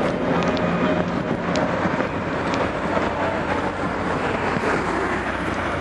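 Steady city street traffic noise from vehicles running along a wide multi-lane road.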